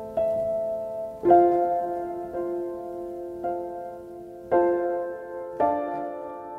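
Slow background piano music: soft chords struck about once a second, each left to ring and die away.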